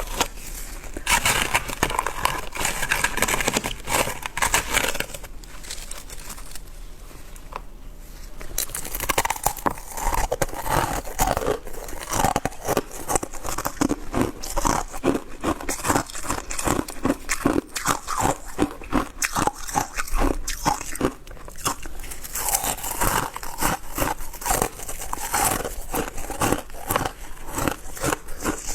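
Shaved ice being bitten and chewed: dense, rapid crunching that eases off for a few seconds about a fifth of the way in.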